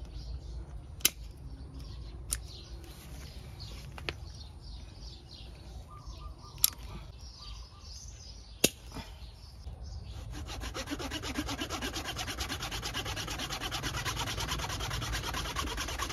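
Pruning shears clicking a few separate times on a woody tamarind branch. From about ten seconds in, a hand saw cuts through the branch with rapid, steady rasping strokes.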